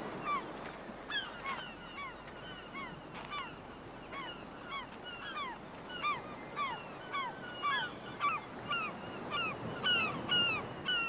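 Gulls calling over and over, many short falling cries overlapping, several a second, over the steady wash of waves breaking on the beach.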